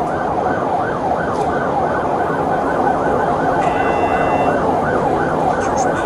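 Police vehicle siren on a fast yelp, sweeping up and down about three to four times a second, heard inside the cabin over road and engine noise. A short electronic beep tone sounds briefly about two thirds of the way through.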